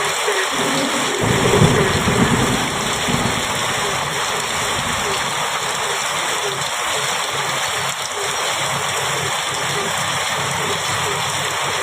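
Heavy rain pouring steadily on a metal roof. About a second in, a low roll of thunder rumbles for roughly two seconds.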